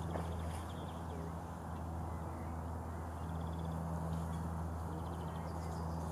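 Birds calling, with short rapid trills heard three times, over a steady low hum and background noise.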